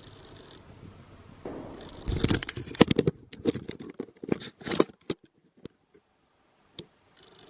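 Handling noise from a handheld camera being moved: a run of rustles, scrapes and sharp clicks for about three seconds, then almost nothing but a single click near the end.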